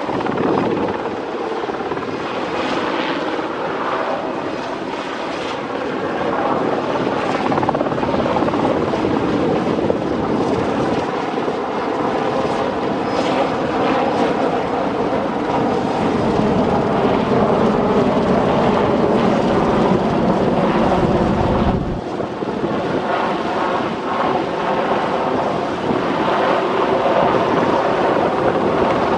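Westland Sea King helicopter flying low overhead: the main rotor and its twin Rolls-Royce Gnome turboshaft engines make a loud, steady noise. A deep rumble underneath cuts off suddenly about three-quarters of the way through.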